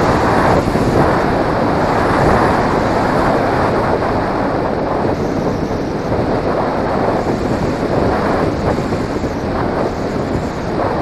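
Wind rushing over the microphone of a camera mounted on a flying RC flying wing: a loud, steady, buffeting rush.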